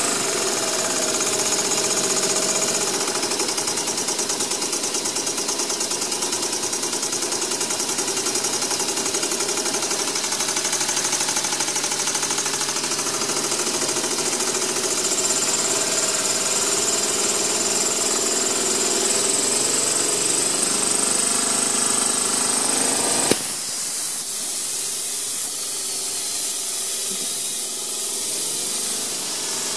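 Small homemade steam engine running fast on boiler steam: a steady hiss of steam with a rapid, even chatter. About three quarters of the way through there is a sharp click, and the hiss thins after it.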